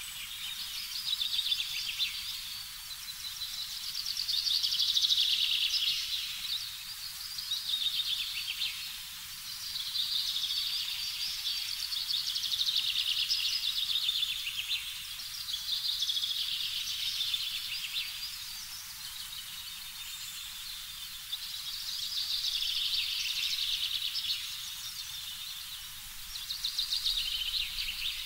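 Birds chirping and twittering in a dense chorus that swells and fades every few seconds, over a faint low rumble.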